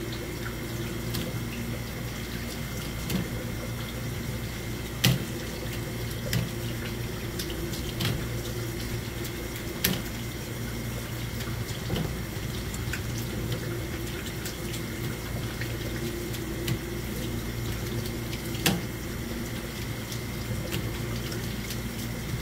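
Water running steadily from a hose at a fish-prep sink while cut gizzard shad pieces are rinsed by hand, over a steady low hum. Scattered soft knocks come as the pieces are dropped into a plastic basket.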